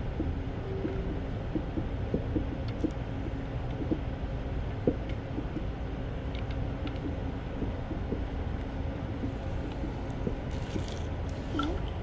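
Scattered light clicks and taps of hands and small tools working a brake caliper's bleeder valve, over a steady low hum.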